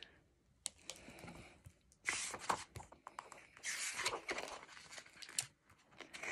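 Hardcover picture book being opened and its pages turned: faint paper rustling and sliding in a few short bursts, with some light clicks of the cover and pages.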